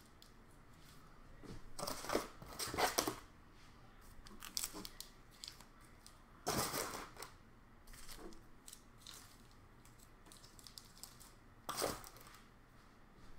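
Packaging being handled, crinkling and rustling in three bursts: a longer one about two seconds in, another at about six and a half seconds, and a short one near the end, with fainter handling noises in between.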